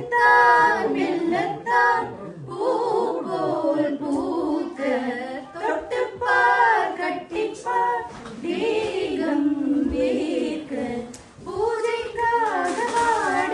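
A small group of women singing a song together without accompaniment.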